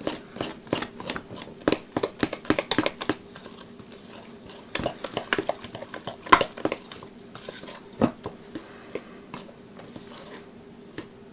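A utensil stirring thick bread dough in a stainless steel mixing bowl, knocking and scraping against the bowl in quick irregular runs of strokes with short pauses, as flour is worked into the dough.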